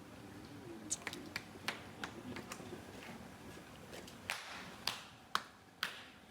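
A string of about ten irregular sharp clicks and knocks, the loudest in the second half.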